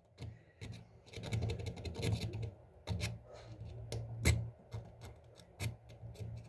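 Sandpaper rubbing by hand in short, irregular strokes against the teeth of an old alarm-clock gear, sanding off burrs from worn teeth, with a few small sharp clicks.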